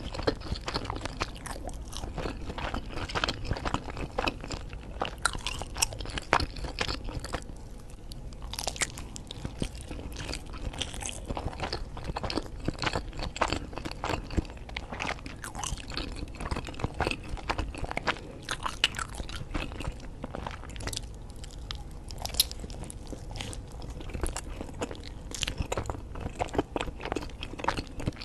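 Close-miked biting and chewing of a macaroni-and-cheese pizza slice with a bread crust: many short, sharp mouth clicks and bites follow one another.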